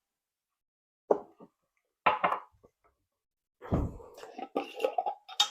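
Short, scattered kitchen handling sounds while food is being seasoned in the pan: a brief knock about a second in, a quick cluster of taps around two seconds, then a low thump followed by a run of clatters near the end.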